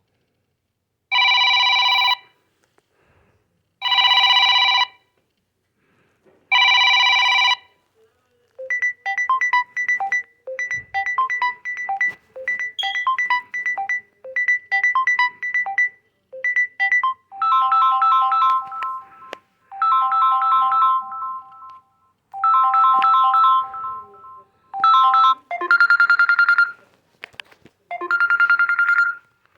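Samsung Galaxy M30s ringtones playing: three separate one-second chimes, then a quick repeating run of short notes, then longer rings of several tones.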